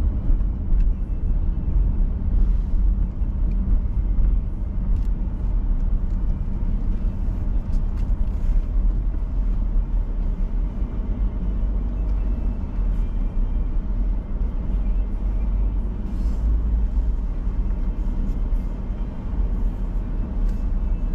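Inside the cabin of a Ford Edge driving slowly: a steady low rumble of engine and tyres, picked up by a camera sitting on the dashboard.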